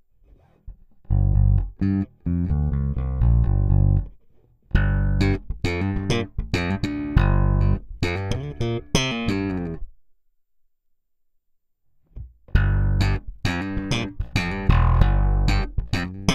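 Electric bass guitar played through a Cranborne Camden EC1 preamp with its Mojo saturation engaged: two plucked phrases, a pause of about two seconds, then a third phrase near the end.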